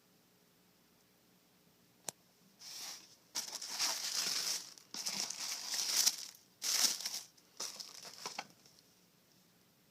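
Paper packaging crinkling and rustling in several bursts as a beauty box is unpacked, after a single sharp click about two seconds in.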